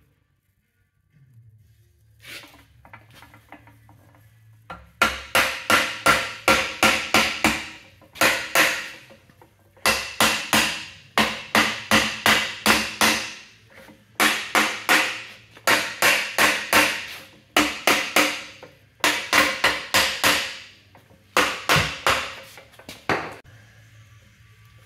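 A hammer knocks a Ford 9-inch third member down into its axle housing, seating the centre section. The blows come in quick runs of about five a second with short pauses between runs, each one a sharp metallic knock with a brief ring, starting about five seconds in and going on almost to the end. A faint steady low hum runs underneath.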